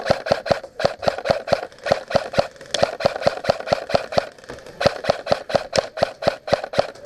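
Airsoft rifle fired semi-automatically in a steady string of sharp shots, about four a second.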